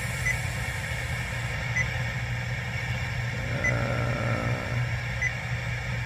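Four short, high touch-feedback beeps from an ATOTO aftermarket touchscreen car stereo, one every one and a half to two seconds as menu items are tapped, over a steady low hum inside the car.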